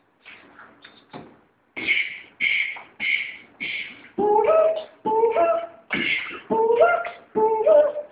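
Beatboxing by one person: soft mouth clicks at first, then a steady run of four sharp hits about half a second apart, then from about four seconds in a beat with a hummed melody that steps up and down in pitch.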